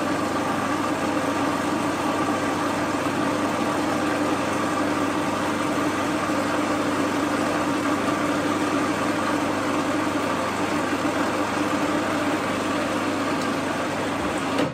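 Electric food processor running steadily, a constant motor hum, while oil is drizzled in through its feed tube to emulsify a cod's roe taramasalata; the motor cuts off suddenly at the end.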